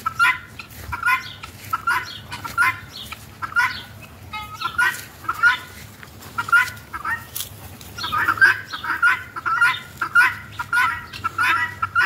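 A flock of helmeted guineafowl calling, a steady run of short, harsh, repeated calls that come faster and louder in the second half.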